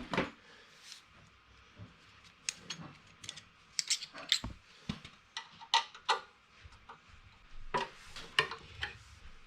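Scattered clicks and light metal clinks of hand tools and fittings being worked on an air compressor's regulator manifold as it is taken apart, in irregular bursts with no motor running.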